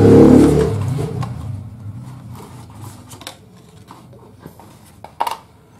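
Smartphone box and paper booklets handled by hand: a loud low rumble of handling on the microphone at the start, then scattered soft rustles and small clicks of card and paper, with a sharper tap about five seconds in.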